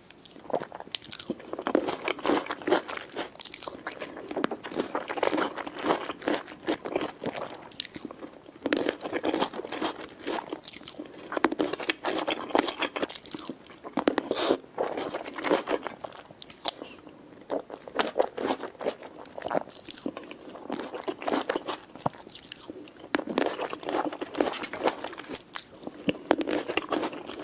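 ASMR eating close to the microphone: a person biting into and chewing tomatoes, a dense run of small clicking bites and chews in clusters with short pauses between them.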